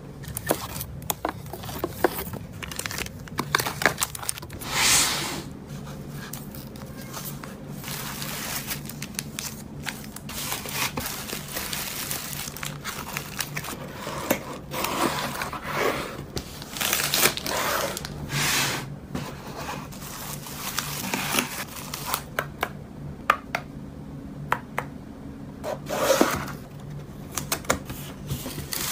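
Packing sounds: rolls of printed adhesive tape clicking and tapping as they are handled, plastic and bubble wrap crinkling, and a cardboard mailer box scraping as it is closed and taped shut. A string of irregular short clicks and rustles.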